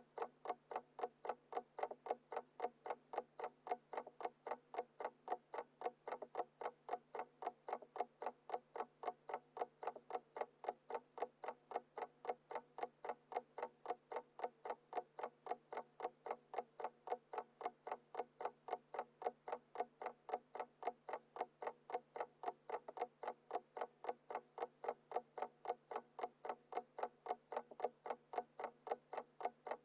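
Alarm clock ticking steadily and evenly, about four ticks a second.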